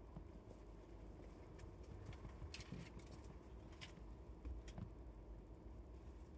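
Faint fingertip taps on the touchscreen of an Autel diagnostic tablet: a few soft clicks in the middle, over a low steady hum.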